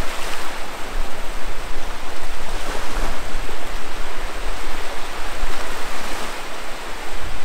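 Small surf waves breaking and washing up the beach, a steady rushing noise.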